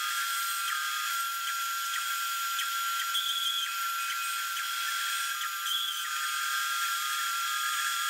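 Bandsaw running with a steady high-pitched whine as its blade cuts a small wooden block along a glued-on paper letter pattern.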